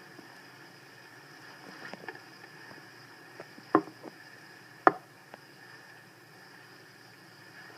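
Two sharp knocks about a second apart, with a few lighter taps before and after, over a steady faint hiss.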